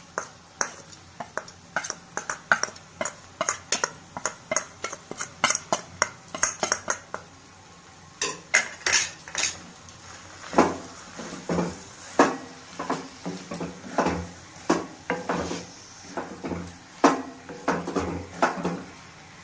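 Metal spatula clinking and scraping against a metal kadai as a thick mash of spiced beetroot, carrot and potato is stirred and pressed, in a quick run of strikes several a second with a brief pause a little before halfway.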